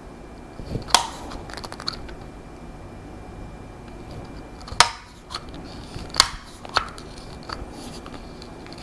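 Short, sharp metallic clicks and taps of rifle chassis parts and hand tools being handled, a few louder ones spread out, the loudest about a second in and near five seconds.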